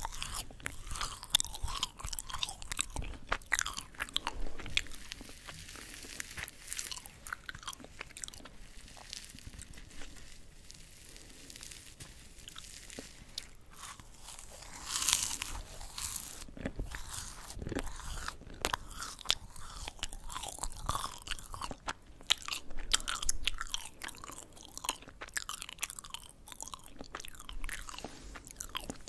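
Crisp yugwa, Korean fried glutinous-rice crackers coated in puffed rice, being bitten and chewed close to the microphone: a steady run of small crackling crunches, with a louder crunch about halfway through.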